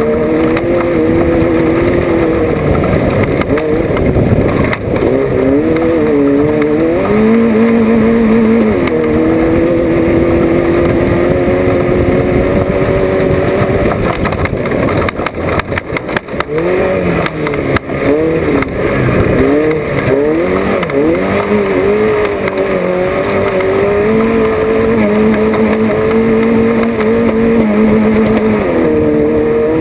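Off-road race vehicle's engine heard from on board, running hard with its pitch climbing and dropping again and again as the throttle and gears change. A run of sharp knocks comes about halfway through.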